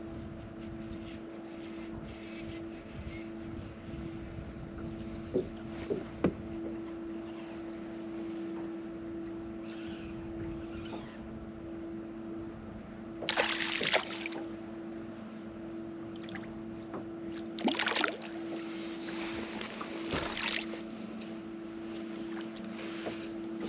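Bow-mounted electric trolling motor humming steadily. A few light clicks come about five to six seconds in, and two loud splashes come about halfway and about three-quarters of the way through as a hooked fish thrashes at the surface near the boat.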